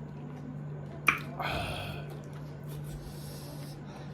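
Close-up eating sounds: a sharp click about a second in, then a short noisy burst of chewing, with a fainter rustle later. A steady low hum runs underneath.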